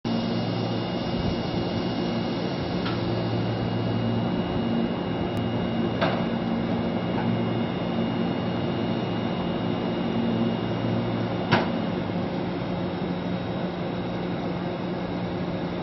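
Steady hum of a parked Tobu 10000 series electric train's rooftop air conditioners and auxiliary equipment. Three sharp knocks stand out over it, the loudest about three-quarters of the way through.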